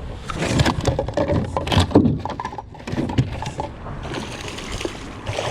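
A freshly landed flathead flapping and slapping against the boat's floor: a rapid run of knocks and slaps that eases off after about three seconds.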